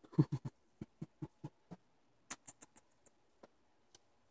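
Australian cattle dog breathing in short, quick huffs, about five a second at first and slowing over the first two seconds, followed by a brief run of light clicks.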